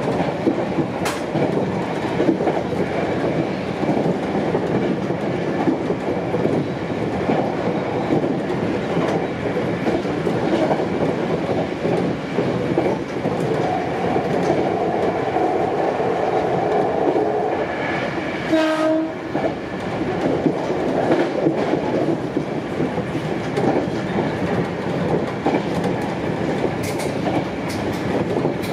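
Sanyo Electric Railway 5000 series electric train running at speed, heard from the driver's cab: steady running noise with wheels clacking over the rail joints. A brief pitched tone sounds about two-thirds of the way through.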